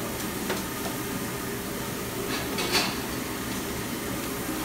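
Fast-food restaurant background noise: a steady hum of kitchen and ventilation with a few faint clinks, and a short, sharper noise about two and a half seconds in.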